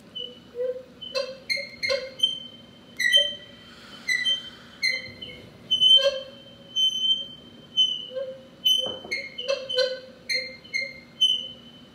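Drum kit played in a free solo improvisation, worked close over the snare: light, irregular strikes, about two a second, each leaving a short ringing pitched tone.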